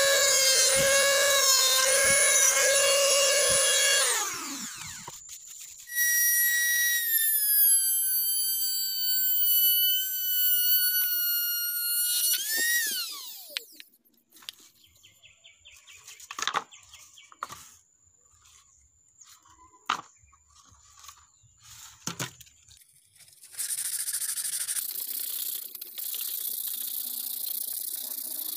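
A mini rotary tool with a cutting disc whines as it cuts into PVC pipe, its pitch wavering under load, then spins down. It runs again at a higher, steadier pitch for about six seconds and winds down. After a stretch of light handling clicks, sandpaper rubs on the PVC pipe with a steady scratchy hiss near the end.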